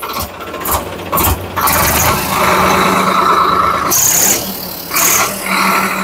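Swaraj 855 FE tractor's three-cylinder diesel engine revved up from idle, building over the first two seconds and then held at higher speed, easing off briefly a couple of times. It is a plain mechanical-injection diesel rather than a common-rail engine.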